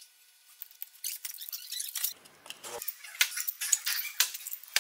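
Scattered light metallic clicks and clinks of a connecting rod, its cap and bearing shells being handled, starting about a second in after a near-silent moment.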